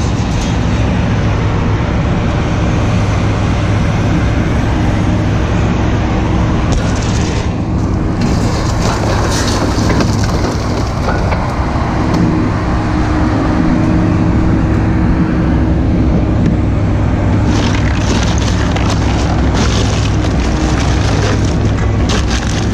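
Motor vehicle engine running steadily, a loud low drone with road or running noise over it.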